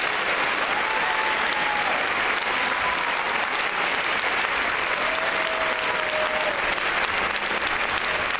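Congregation applauding steadily: many hands clapping at once in a dense, even patter.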